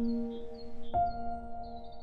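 Slow, soft background music of single ringing notes, a new one struck about a second in, with faint bird chirps repeating high above it.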